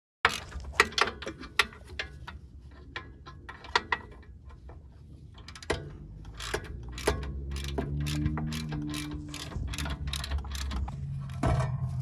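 Ratchet wrench clicking in short irregular runs, loudest in the first few seconds. A low steady hum joins about seven seconds in.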